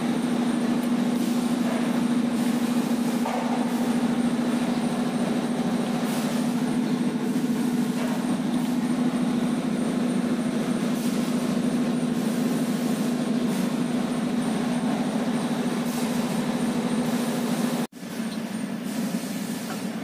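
Steady machine hum with a strong low drone, unchanging throughout; it briefly cuts out near the end.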